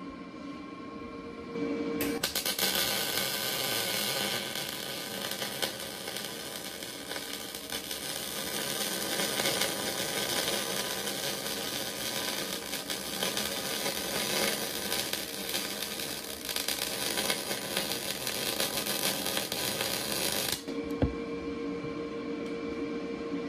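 MIG welding arc running a bead on a steel test piece: a continuous crackling that starts about two seconds in and cuts off suddenly about three seconds before the end. A steady machine hum is heard before and after it, and a single click follows just after the arc stops.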